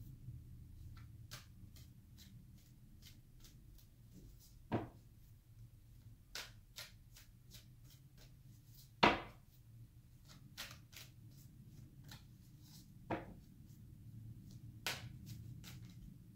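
Tarot cards being handled and shuffled: many light card clicks and taps, with a few louder knocks, the loudest about nine seconds in, over a low steady room hum.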